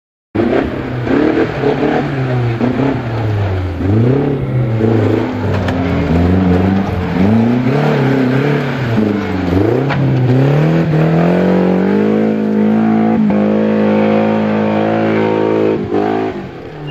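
Suzuki Grand Vitara off-road racer's engine revving up and down again and again under load on a steep rocky climb. About ten seconds in, the revs rise and are held high for several seconds, then drop briefly near the end.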